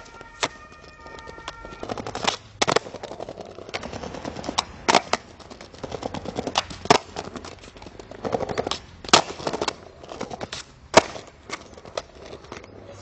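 Skateboard rolling over paving stones, with a series of sharp cracks from the tail popping and the board and wheels slapping down on landings, spaced a second or two apart.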